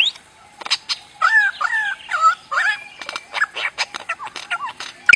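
A bird giving a varied run of strange calls: sharp clicks throughout, with wavering, warbled notes for a couple of seconds in the first half.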